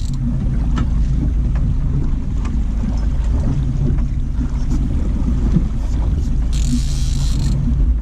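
Outboard motor running steadily at trolling speed, a low rumble with wind buffeting the microphone. A short hiss comes about seven seconds in.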